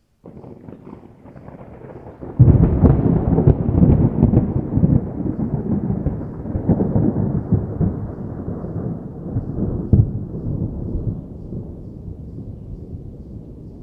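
Distant thunder: a low rumble begins, then about two seconds in a loud clap breaks into a long rolling rumble that slowly fades, with one more brief flare near the end.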